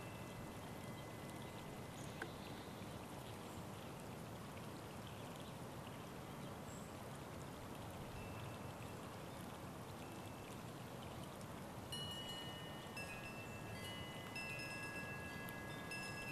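Steady hiss of gently flowing water. In the last few seconds, several high ringing tones at different pitches sound and overlap, like chimes.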